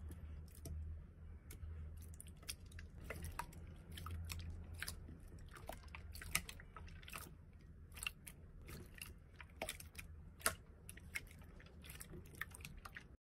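Clear slime squeezed and kneaded by hand, giving faint, irregular sticky clicks and pops, several a second, with a couple of louder pops, over a low steady hum.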